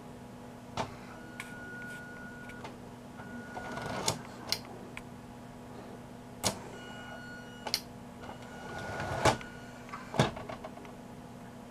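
Small electric motors raising and lowering the roll-up doors of a processor-controlled model vehicle shed: a thin whine in stretches, broken by several sharp clicks, over a steady low hum.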